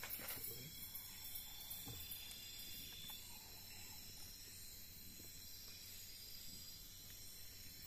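Faint, steady chirring of night insects in a high-pitched chorus, with a few soft handling ticks and a single sharp knock near the end.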